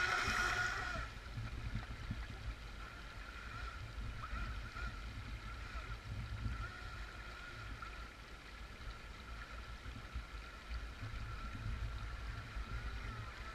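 Radio-controlled jet boat's motor whining as the boat runs on the river, loud and wavering in pitch for about the first second, then fainter and steadier as it moves away. Under it, the low rush of a shallow stream.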